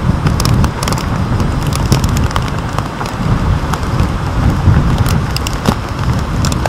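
Tropical-storm wind gusting against the microphone in a heavy, churning rumble, with rain and sharp ticks of drops striking the camera's waterproof housing.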